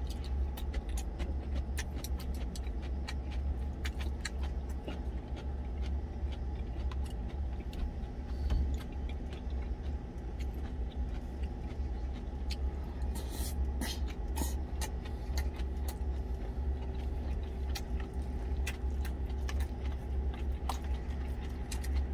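Truck engine idling with a steady low rumble, under light clicks and taps of wooden chopsticks and a spoon against a stainless steel food container, thickest about two-thirds of the way through.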